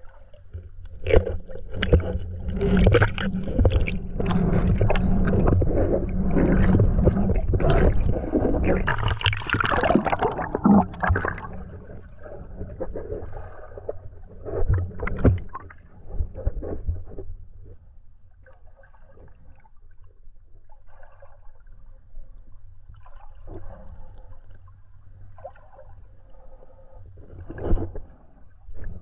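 Muffled underwater sound of a shallow rocky creek heard from a submerged camera: churning, bubbling water with sharp knocks and clicks, loud for about the first ten seconds, then quieter with only scattered clicks.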